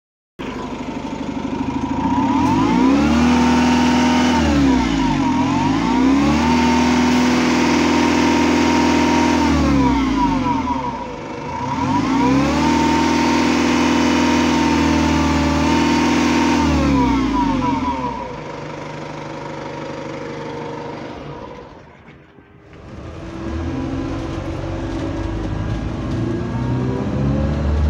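Alexander Dennis Enviro200 bus engine revved three times in neutral: each rev climbs, holds high for a few seconds and falls back toward idle, with a steady high tone running through it. This is the distinctive engine sound that most other Enviro200s have had fixed. After a brief drop near the end, the engine is heard running from inside the bus as it drives.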